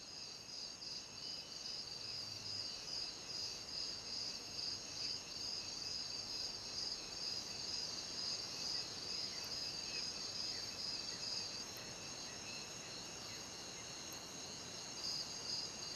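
Night-time chorus of crickets trilling steadily, high-pitched, with a fine pulsing.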